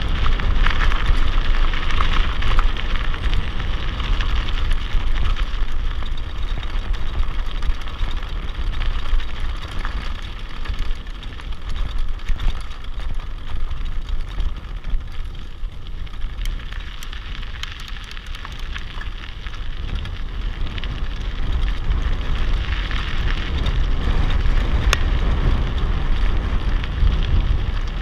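Mountain bike rolling fast downhill on a gravel road: a steady crackle of tyres over loose stones, with wind buffeting the microphone as a low rumble. It eases off around the middle and builds again toward the end.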